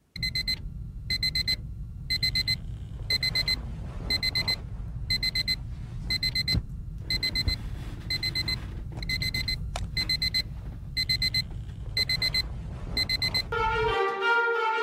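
Phone alarm beeping, a high electronic beep in short rapid bursts repeating about once a second, over a steady low hum. The beeping stops near the end as it is switched off.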